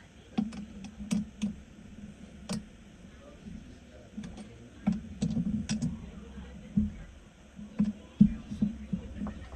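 Irregular light clicks and taps, some coming in quick clusters, over a low steady hum.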